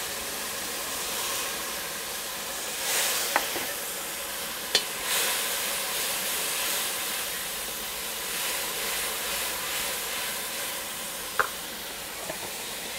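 Curry paste sizzling and hissing in a hot pot of burnt sugar as it is stirred, browning the curry for a stew. A spoon knocks sharply against the pot three times.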